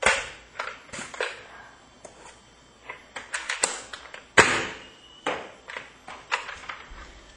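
Foam dart blaster being handled and fired with a mega dart: a string of plastic clicks and knocks, with the loudest knock about four and a half seconds in.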